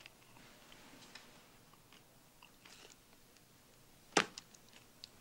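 A man chewing a mouthful of crunchy food: faint, scattered crunching clicks, with one louder crunch near the end.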